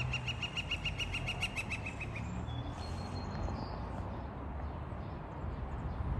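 A woodpecker calling: a fast series of sharp, evenly repeated notes, about six a second, that stops about two seconds in. A few fainter, higher chirps follow over a low background rumble.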